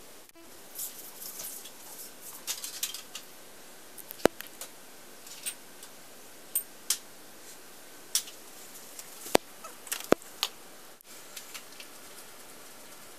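Scattered clicks, knocks and rustles of things being handled, with three sharp knocks standing out about four, nine and ten seconds in, over a steady low hiss.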